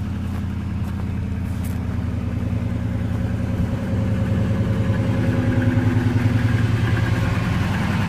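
A car engine idling steadily, growing a little louder about halfway through.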